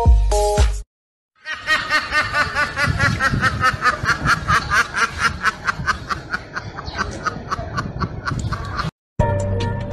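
A crate of ducks quacking together in a rapid run, several quacks a second, that sounds like laughter. Background music plays for the first second, and music comes back near the end.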